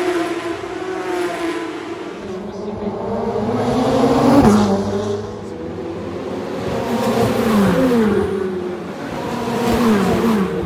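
Race car engines going past the fence: one car's engine note rises to a loud peak about four seconds in. Later the engine notes fall twice in quick steps, as cars shift down for the corner.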